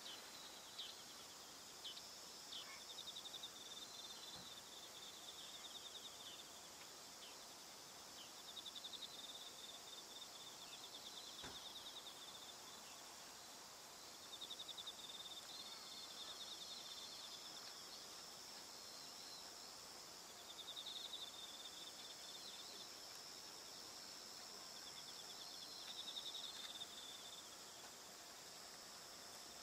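Faint crickets trilling in the autumn evening, short pulsed high phrases of a second or two repeating over a steady high insect hum.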